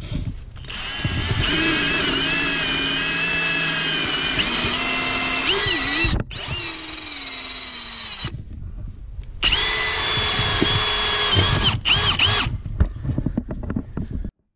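Cordless drill driving a long pilot bit up through the floor from below. It runs in spurts of steady high motor whine, a long run of about five seconds and two shorter ones of about two seconds, with the pitch sagging as the bit bites. A couple of short bursts come near the end.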